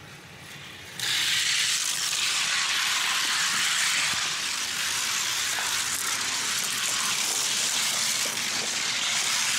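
Two 1:64 die-cast race cars rolling down a gravity race track. Their small wheels make a loud, steady rushing rattle that starts suddenly about a second in, as the cars leave the start gate.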